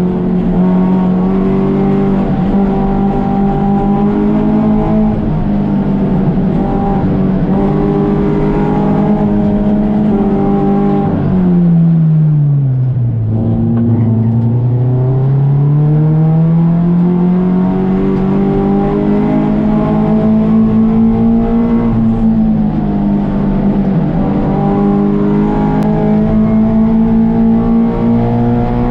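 Touring 4 race car's engine running at high, fairly steady revs, then dropping sharply about eleven seconds in as the car slows for a corner, and climbing smoothly for about eight seconds as it accelerates out, holding high revs near the end.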